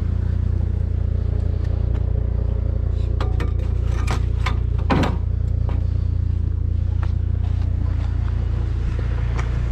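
Vehicle engine running steadily with a low drone. A few sharp clicks and rattles come in the middle.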